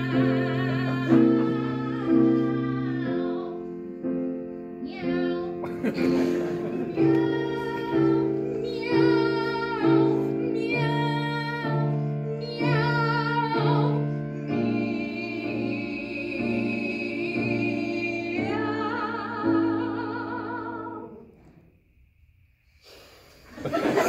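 Two female voices singing a comic operatic duet on 'meow', imitating cats, with piano accompaniment. The music stops about three seconds before the end and, after a short near-silent pause, laughter begins.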